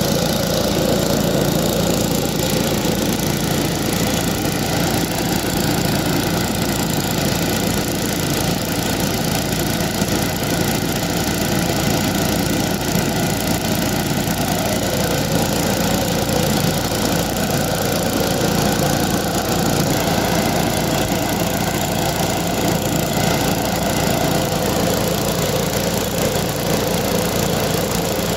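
Small engine running steadily at one speed, with the steady hiss of a rail-welding preheating burner.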